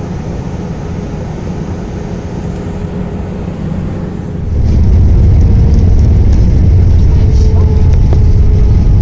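Steady rushing cabin noise inside an Airbus A320. About halfway through it jumps to a louder, deep rumble that holds steady.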